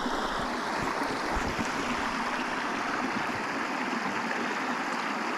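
Small river running steadily: a continuous, even rush of flowing water.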